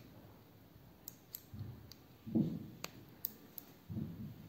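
Small sharp plastic clicks and dull knocks from handling a USB-charger hidden camera as a microSD memory card is pushed into its slot.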